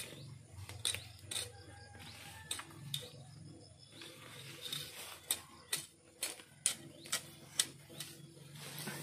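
A bolo knife chopping and slicing through grass and weeds at ground level: about a dozen short, sharp strikes at an uneven pace, coming faster in the second half.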